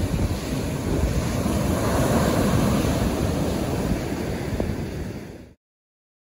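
Ocean surf breaking and washing up a sandy beach, a steady rushing wash that swells a little about two seconds in and stops suddenly about five and a half seconds in.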